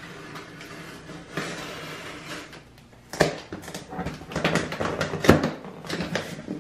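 Packing tape tearing as the flaps of a cardboard shipping box are pulled apart by hand. A drawn-out scratchy peel comes first, then several sharp rips from about three seconds in.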